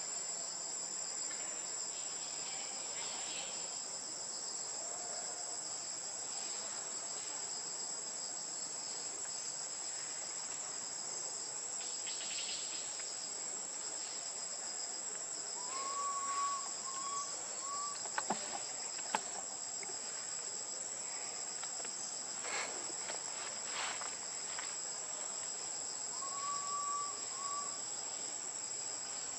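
Steady, high-pitched drone of a forest insect chorus. A short chirping call comes twice, about halfway through and near the end, and a few sharp clicks fall between them.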